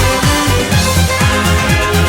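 Background music: an electronic beat with deep, falling bass drum hits about twice a second under sustained synth tones, no vocals.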